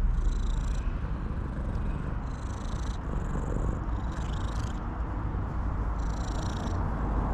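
Cat purring steadily.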